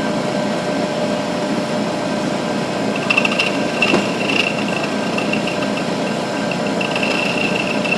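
Milling machine running with an end mill cutting a slot in a metal plate. From about three seconds in, the cut gives an on-and-off high-pitched squeal over the steady hum of the machine.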